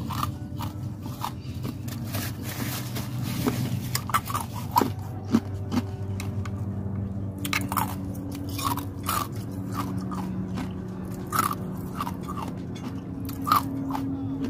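Close-miked eating sounds: a person biting and chewing crunchy fast food, many short crunches and wet mouth clicks, over a steady low background hum.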